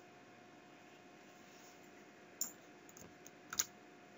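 A few scattered short clicks from working a computer, the loudest a close pair about three and a half seconds in, over faint steady room hiss with a low hum.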